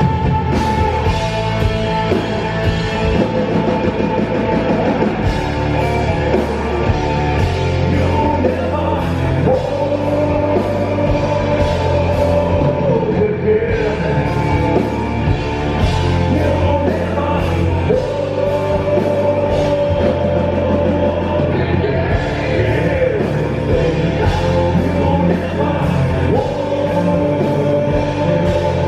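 Live gothic-doom metal band playing: heavy distorted electric guitars, bass guitar and drums, with a melody of long held notes that returns about every eight seconds, and sung vocals.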